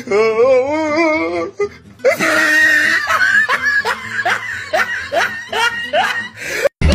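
Hearty laughter: a long wavering laugh, then a quick run of laughs, about three a second, that cuts off abruptly near the end.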